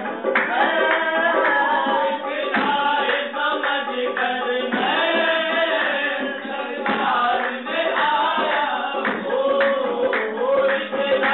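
Live qawwali: voices singing a wavering melodic line over steady drum accompaniment.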